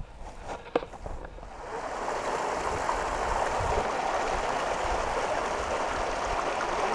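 Small mountain stream splashing over boulders: a steady rush of water that swells in during the first couple of seconds and then holds. Before it builds, a few footsteps on grass knock in the first second.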